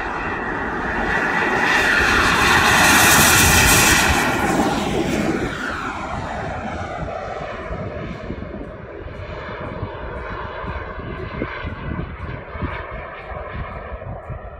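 Turbine engine of a radio-controlled model jet on its takeoff run, a loud whining roar that peaks three or four seconds in. It then drops in pitch and fades as the jet climbs away.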